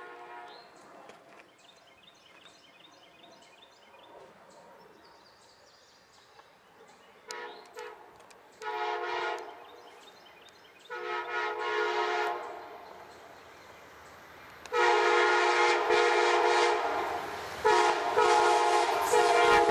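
Nathan K5LA five-chime air horn on an approaching Amtrak passenger locomotive. It sounds three separate blasts about seven, nine and eleven seconds in, then a long, louder blast from about fifteen seconds on as the train draws near.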